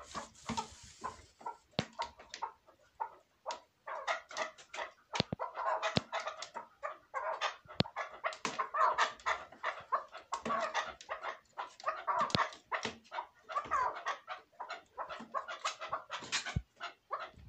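Chukar partridge calling: a long run of quick, repeated clucking chuk notes, thickening into a near-continuous chatter from about four seconds in.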